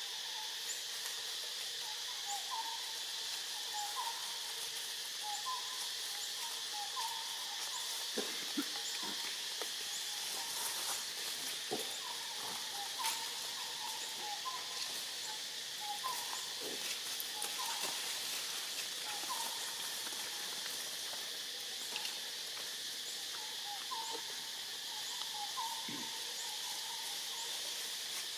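Forest ambience: a steady high drone of insects, with a bird's short call repeated about once a second. A few faint soft rustles come through now and then.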